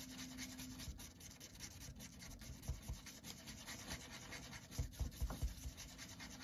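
A small wooden stick stirring and scraping two-part JB Weld epoxy across a sheet of paper: a faint, soft rubbing, with a few light thumps around three and five seconds in.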